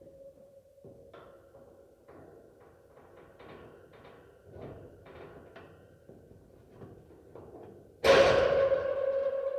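Iron dungeon cage door rattling and clanking on its hinges, then slamming shut about eight seconds in with a loud metallic clang that rings on. A steady ambient drone runs underneath.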